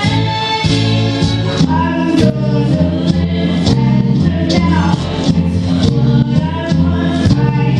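A young girl singing into a handheld microphone over loud accompanying music with a steady beat and bass.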